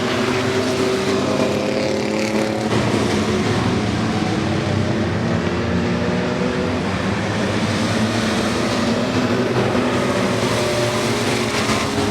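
A field of racing trucks running laps on a short oval track, several engines sounding at once, their pitches drifting up and down as they pass.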